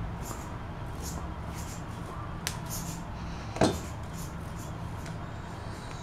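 Wire whisk stirring and scraping stiff flour dough in a stainless steel bowl: soft repeated scraping strokes, with a small click about two and a half seconds in and a sharp knock about a second later. A low steady hum runs underneath.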